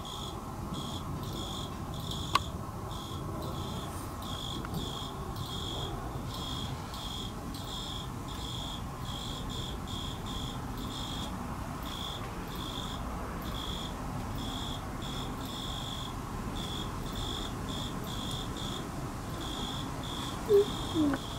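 An insect chirping in a steady run of short high chirps, about two a second, over low steady background noise. A single sharp click comes about two seconds in, and a short falling sound near the end.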